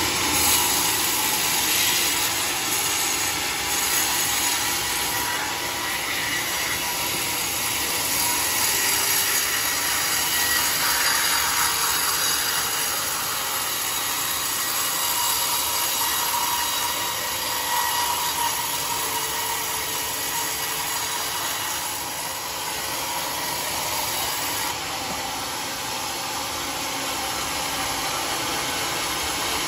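Band saw mill running steadily as it rips through a large red-heartwood log.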